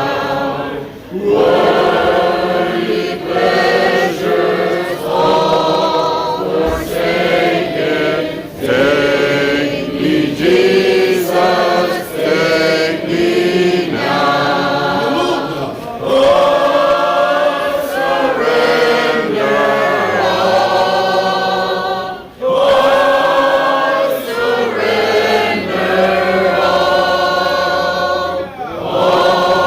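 A church congregation singing a hymn together, in long held phrases with brief pauses for breath between them.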